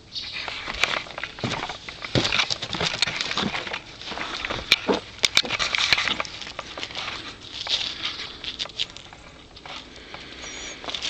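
Footsteps crunching and crackling on icy, crusted snow, in irregular clusters of sharp clicks.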